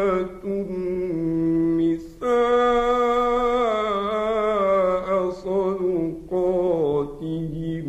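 A male Quran reciter chanting in the ornamented, melodic tajweed style. He draws each phrase out into long sustained notes with a wavering, ornamented pitch, with short breaks for breath between several phrases.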